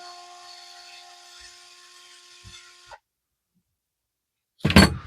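Small power screwdriver running with a steady whine as it backs out a screw, stopping abruptly about three seconds in. Near the end comes a single loud knock.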